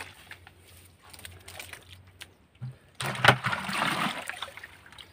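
A plastic bucket scooping through shallow muddy water, bailing out a dammed-off stretch of stream. Faint small splashes and trickling come first, then a loud slosh about three seconds in that lasts about a second.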